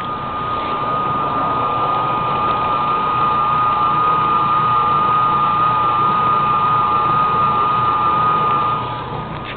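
Mueller Plus washing machine motor running with a steady high whine over a rumble, rising over the first second or two and easing off near the end.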